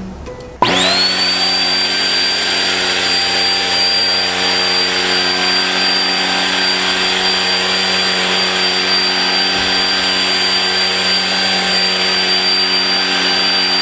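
Deerma CM818 handheld dust mite vacuum switching on about a second in, its motor spinning up to a steady high whine over rushing air.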